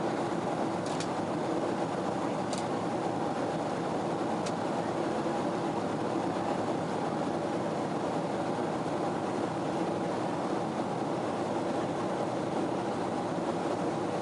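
Steady drone inside the cabin of a Boeing 777-200ER airliner in flight: even engine and airflow noise with a low hum running under it.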